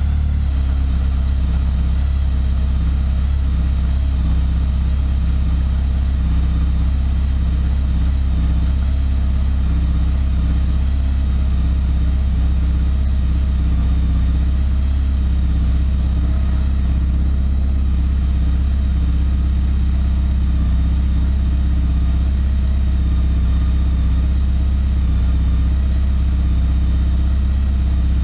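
Porsche 944 inline-four engine idling steadily with the hood up, running with its freshly reinstalled air-oil separator.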